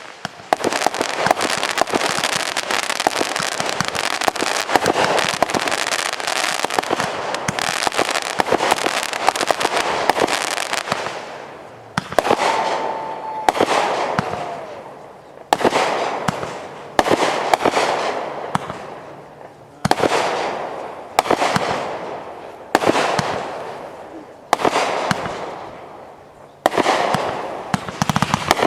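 Fireworks going off, first as a dense, continuous barrage of cracks and pops for about ten seconds. Then comes a run of separate bangs, one every one to two seconds, each followed by fading crackle, with a short whistle near the start of that run.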